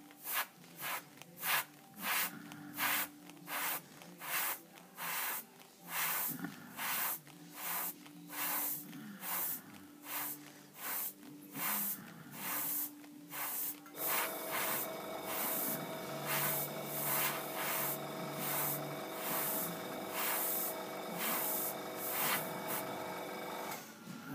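Iwata Eclipse airbrush spraying in short, repeated hissing bursts, about one and a half a second. Just past halfway a steady hum of several tones comes in underneath and stops just before the end.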